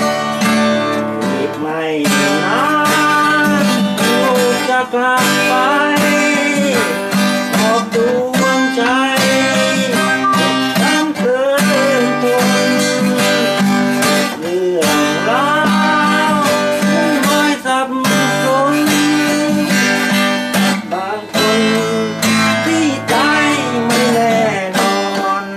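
Acoustic guitar strummed continuously, with a melody line that slides up and down in pitch over the chords.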